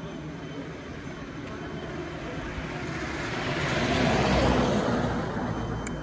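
A motor vehicle passing by: its engine and road noise swell to a peak about four seconds in, then fade away.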